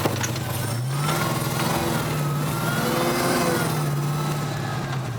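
Supercharged 6.2-litre HEMI V8 of a Hellcat-swapped 1969 Dodge Charger on the move. The revs climb about a second in, hold, and ease off near the end.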